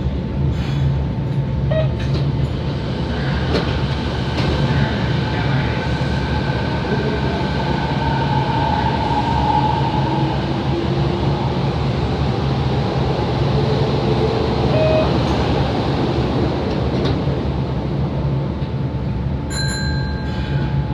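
Running noise heard inside a Kobe Municipal Subway 3000 series car, with the whine of its Hitachi GTO inverter motor drive gliding in pitch under the steady rumble of the wheels. This car's acceleration and braking sound is slightly different from other cars of the class. A brief high-pitched sound comes near the end.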